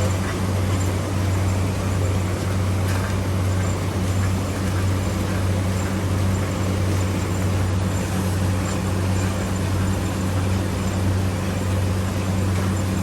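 Automatic PET plastic box folder-gluer running steadily: a constant low hum under an even mechanical whir.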